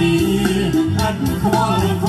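A song with a singing voice and instruments, played back through a Libratone Zipp Mini portable speaker.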